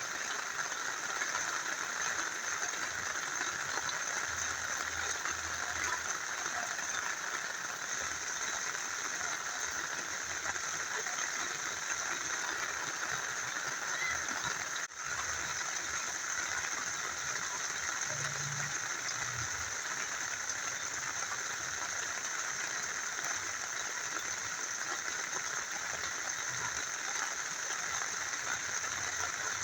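Steady rain mixed with the flowing water of a small stream, an even unbroken hiss. It cuts out for a split second about halfway through.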